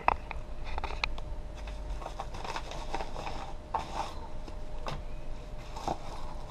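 A padded paper mailing envelope rustling and crinkling as it is handled and its contents are dug out, with scattered small taps and clicks.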